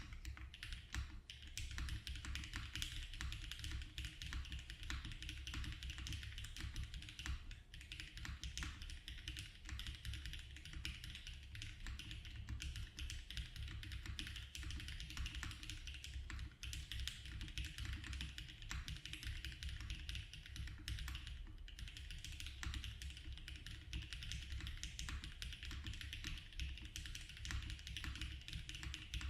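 Typing on a Mode Tempo mechanical keyboard fitted with HMX Macchiato switches: a fast, continuous run of keystroke clacks, broken by a couple of brief pauses past the middle.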